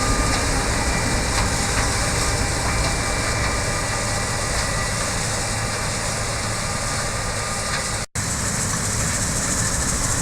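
Corn-harvesting machinery running steadily with a dense mechanical din and a low engine hum, cut off briefly about eight seconds in.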